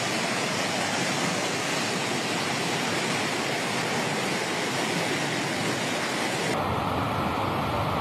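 Steady rushing of floodwater, a dense even noise with no distinct strokes; the sound changes abruptly about six and a half seconds in.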